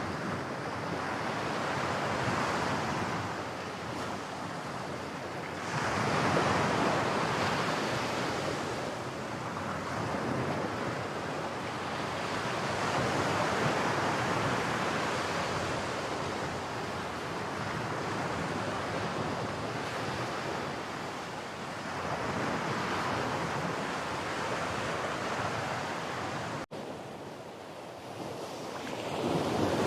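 Ocean surf washing in, swelling and ebbing every few seconds, with wind on the microphone. A sudden brief drop in the sound about 27 seconds in.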